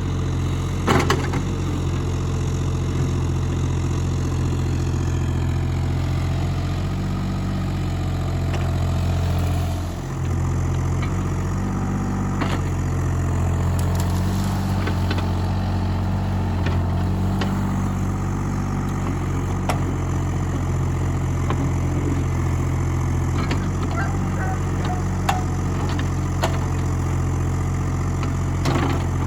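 Mini excavator engine running steadily, its note dipping briefly about a third of the way in, with occasional sharp knocks.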